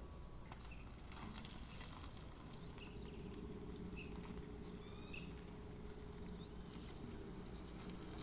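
GWM Ora electric car's pedestrian warning sound (AVAS) in its soft mode: a faint, steady low hum.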